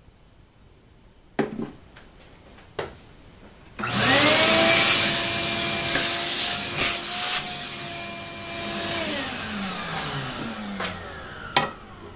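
Vacuum cleaner switched on, its motor spinning up with a rising whine and sucking metal drilling chips off a drill press table, then switched off and winding down with a falling whine. A couple of sharp knocks come before it starts and one more near the end.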